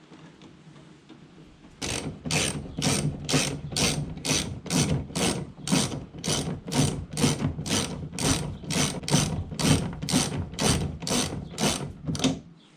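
Ratchet wrench tightening the bolts that fasten a wheel-mount bracket to the boat's transom, clicking in a steady rhythm of about two strokes a second. It starts about two seconds in and stops just before the end.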